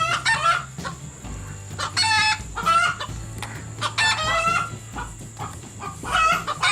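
Chickens clucking and squawking in four short bursts about two seconds apart, over a low steady hum.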